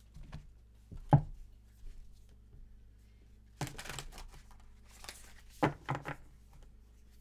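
A tarot card deck being handled and shuffled by hand: a single sharp knock on the wooden table about a second in, then several short bursts of cards rustling and slapping together.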